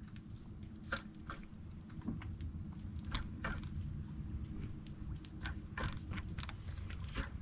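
Faint, irregular small clicks and ticks, about one a second, over a low steady rumble.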